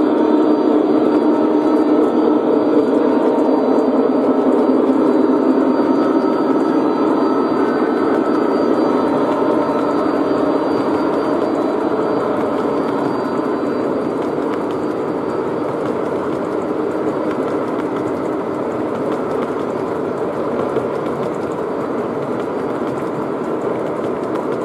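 Long train of loaded O gauge three-rail model coal hoppers rolling steadily past on the track, a continuous rolling rumble of many wheels on rail that eases off a little over the span.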